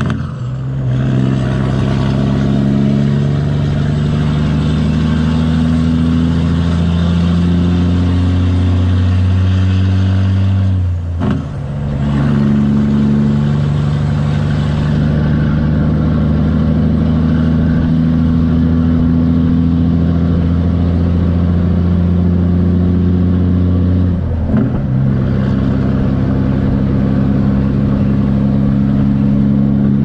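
Straight-piped Kenworth semi-truck's diesel engine pulling a loaded lowboy trailer, running steadily under load. The engine note breaks briefly three times, near the start, about 11 seconds in and about 24 seconds in, as it shifts gears.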